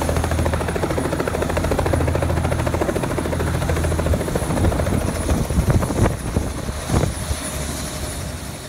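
Light helicopter's main rotor chopping and its engine running as it sets down on the pad and sits with its blades turning. Louder gusty bursts of rushing noise come in the second half, and the sound eases off near the end.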